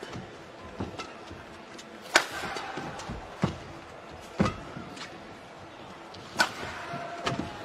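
Badminton rally: the shuttlecock is struck back and forth by rackets, a run of sharp cracks about one every second, the loudest about two seconds in, with the echo of a large indoor hall.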